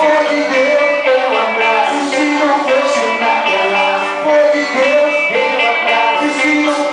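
A band playing a Brazilian gospel praise song (louvor), with a steady beat and singing.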